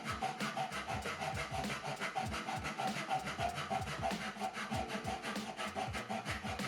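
Hand saw cutting through wood in steady, quick back-and-forth strokes.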